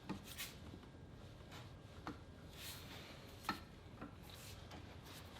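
Faint handling noises of parts and tools: a few light clicks and taps with short scraping rubs, the sharpest tap about three and a half seconds in.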